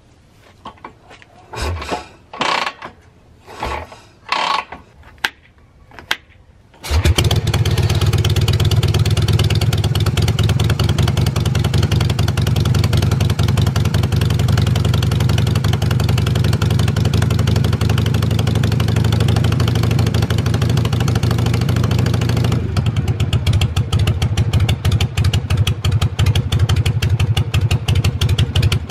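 Harley-Davidson Shovelhead V-twin engine being started: a few short bursts first, then it catches about seven seconds in and runs steadily at idle.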